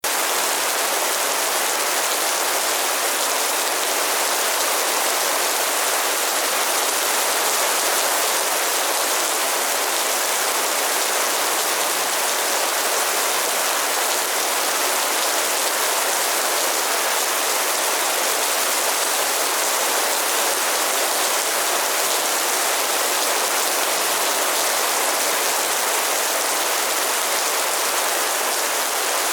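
Heavy rain pouring down steadily, a dense even hiss of raindrops on surfaces with no letup.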